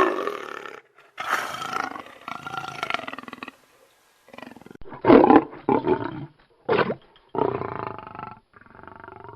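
A string of animal roars, each a second or less, with short pauses between them.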